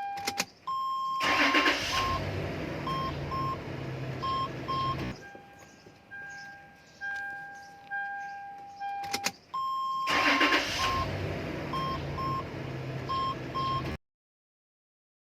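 Toyota Land Cruiser Prado engine started twice. Each time, dashboard warning chimes and a couple of clicks come before a short crank, and the engine catches and idles with short repeated beeps over it. The first run cuts off abruptly about 5 s in and the same start repeats about 10 s in.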